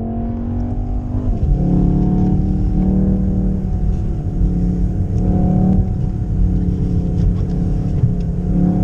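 Volkswagen Golf R's turbocharged four-cylinder engine pulling under acceleration; its pitch drops sharply about a second in, then it rises and eases off several times.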